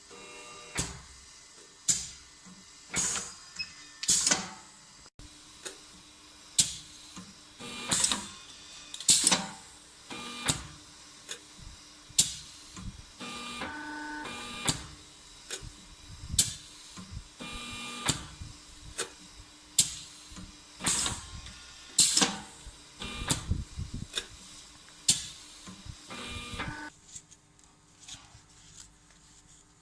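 Automatic measured-length cutting machine with a rotary thermal knife and hole-burning unit at work. Sharp clacks come every second or two, with short motor whirs of the feed between them, over a steady hum. The cycle stops about three seconds before the end.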